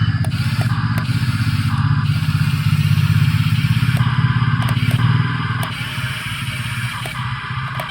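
Small electric motors and plastic gearboxes of a toy remote-control excavator whirring with a steady low buzz and light clicking. The buzz eases off about five seconds in.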